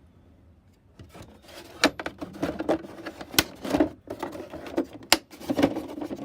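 Tools and cases being handled in a tool chest drawer: after about a second of quiet, a busy run of knocks, rubbing and clicks, with three sharp clicks standing out.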